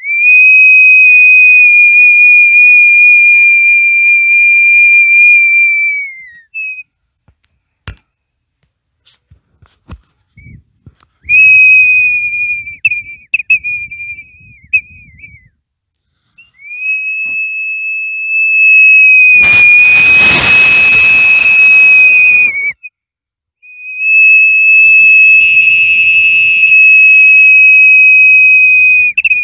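Pre-Columbian-style double-chambered ceramic water whistle sounding a single high whistle. The whistle is held steady for several seconds at a time and repeated about four times with short breaks, wavering and warbling in places. A rushing hiss joins the whistle about twenty seconds in.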